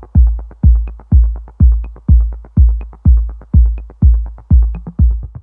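Background electronic dance music: a heavy bass kick drum about twice a second, with quick ticking percussion between the beats.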